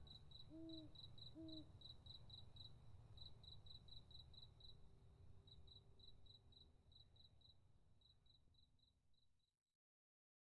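Faint cricket chirping at night, a steady run of high chirps at about four a second that fades away to silence near the end. Two short low calls sound about half a second and a second and a half in.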